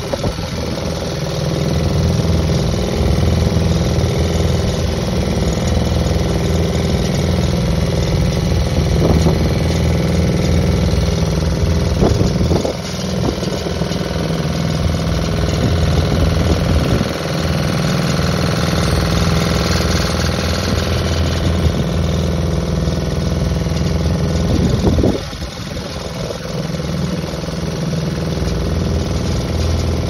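Boat engine running steadily under way, a low drone with water splashing along the hull. It drops in level about 25 seconds in.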